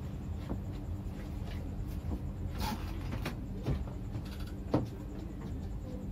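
Light clicks and knocks of a knife cutting ripe papaya by hand and of the pieces being dropped into a bowl, with one sharper knock about three-quarters of the way through.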